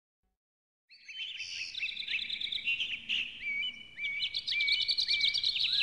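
Silence for about a second, then several songbirds singing and chirping at once, a busy mix of quick, high, upswept notes.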